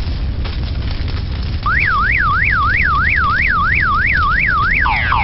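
Electronic car alarm going off as lava engulfs the car. It starts about a third of the way in with a fast rising-and-falling warble, about three sweeps a second, then switches near the end to quicker repeated falling chirps. A steady low rumble from the lava flow runs underneath.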